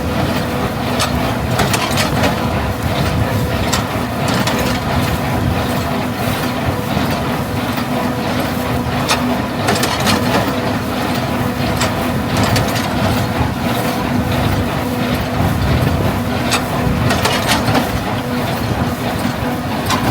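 Farm machinery running steadily: an engine hum with a constant whine, overlaid by frequent irregular mechanical clicks and clatter.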